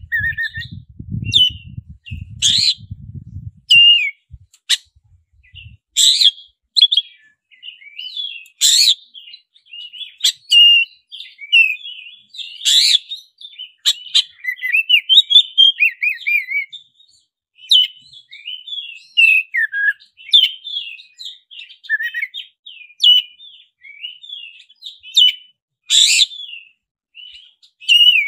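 Black-breasted oriental magpie-robin (kacer dada hitam) singing a fast, varied song of whistles and chatters, broken by several loud, sharp notes.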